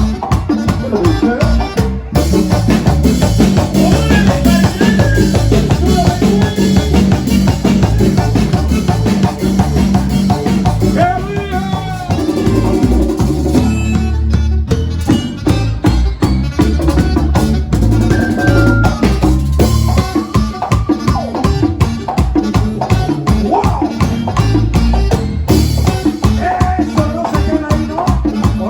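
Latin dance-band music in an instrumental passage without vocals: a busy, steady drum and percussion beat with melody instruments playing over it.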